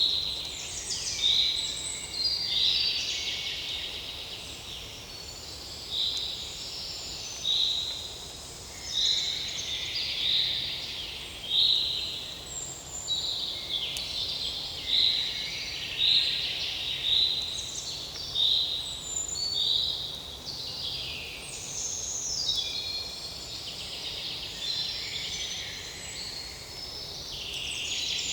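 Forest birdsong from several birds at once. One repeats a short high phrase about every second and a half, and others add quick falling trills, loudest past the middle.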